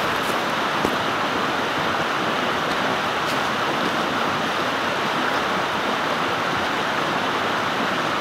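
Fast-flowing brook rushing steadily, an even unbroken sound of running water.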